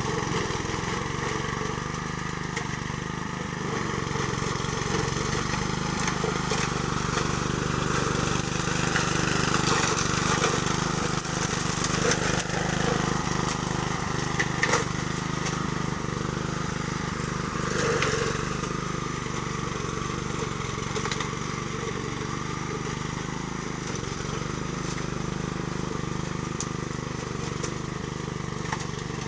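Honda self-propelled lawn mower's engine running steadily, with a few brief swells and light clicks.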